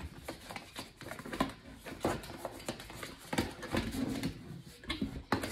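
Hands handling cardboard packaging while unboxing: a steady run of irregular rustles, small clicks and light knocks.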